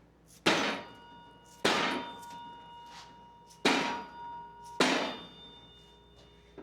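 Four hammer blows on steel, unevenly spaced about one to two seconds apart, each leaving a ringing metallic tone that dies away before the next.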